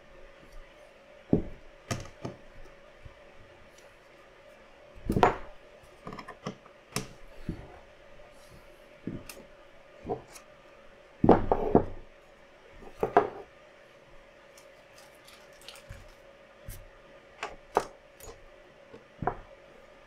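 Parts of a DIY PC case, 3D-printed plastic pieces and acrylic panels, clicking, tapping and knocking as they are handled and fitted together. Irregular small clinks, with louder knocks about five, eleven and thirteen seconds in.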